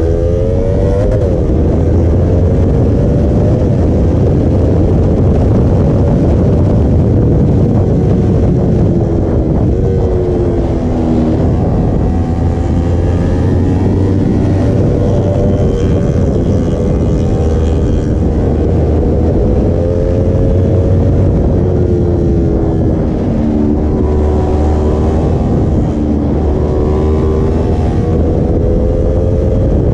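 Sport motorcycle's engine running at speed under heavy wind rush, its pitch rising and falling with the throttle through the curves and dropping twice as the rider backs off.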